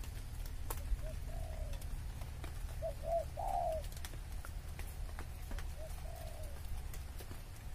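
Spotted dove cooing: three phrases about two and a half seconds apart, each a couple of short notes running into a longer coo.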